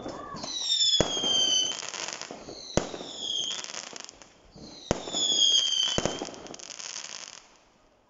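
Fireworks going off: three whistles that fall in pitch, four sharp bangs and crackling between them, dying away near the end.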